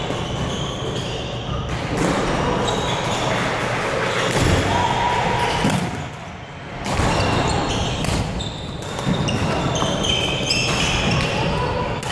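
Badminton play echoing in a large gym: sharp racket hits on shuttlecocks and short squeaks of shoes on the wooden court, over a murmur of voices.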